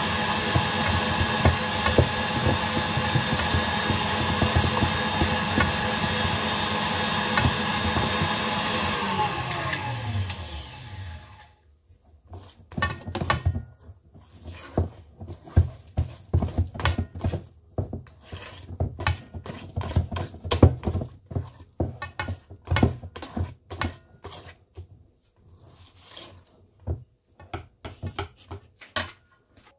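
Electric mixer beating thick batter in a steel bowl, running steadily, then winding down with a falling pitch and stopping about eleven seconds in. After that, irregular knocks and scrapes of a hand utensil stirring the batter against the bowl.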